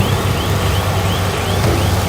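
Heavy diesel earthmoving machinery running steadily under load, with a short high chirp repeating about three times a second over the engine.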